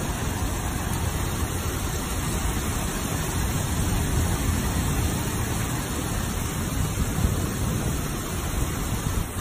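Heavy rain pouring onto a flooded street: a steady, even hiss with a low rumble underneath.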